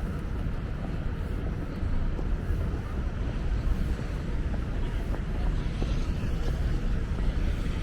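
Steady low rumble of motor-vehicle traffic, mixed with wind on the microphone.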